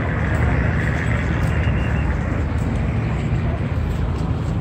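Steady low rumble of outdoor noise with a hiss above it, and faint distant voices in the first couple of seconds.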